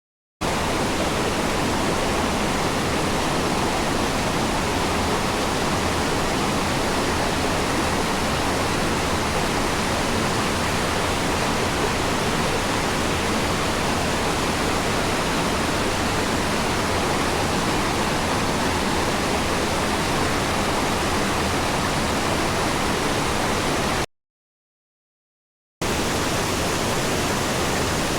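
Waterfall pouring: a steady, dense rush of falling water. It cuts to silence for about two seconds near the end, then resumes.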